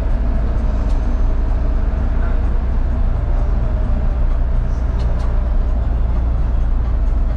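Bus engine running with a steady deep rumble and a faint steady whine above it.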